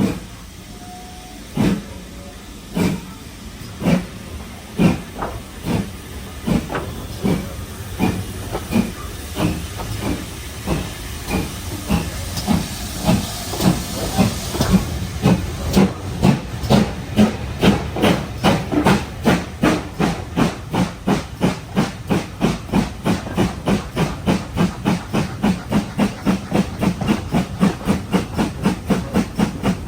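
Steam locomotive pulling away, its exhaust chuffs starting about one a second and quickening steadily to three or four a second.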